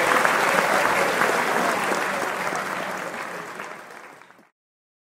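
Crowd applauding, many hands clapping, fading away over the second half.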